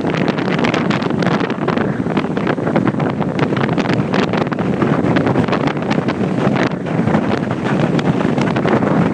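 Wind buffeting the microphone: a loud, steady rushing with crackly gusts and no pauses.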